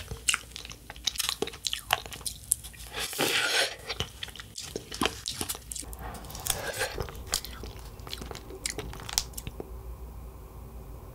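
Close-miked biting and crunching of a black waffle cone of sorbet topped with hard candy sprinkles: a quick run of sharp crunches and chewing that stops about nine seconds in. A faint steady background remains near the end, which an on-screen caption takes for water running next door.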